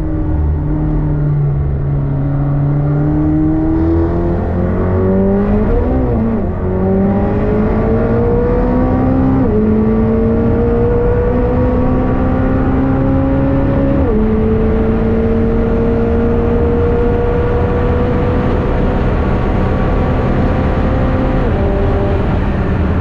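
McLaren 765LT's twin-turbo V8 accelerating hard on a race track, its pitch climbing slowly through long gears with sharp drops at upshifts about nine and fourteen seconds in. A brief dip and rise in pitch about six seconds in, and another drop near the end.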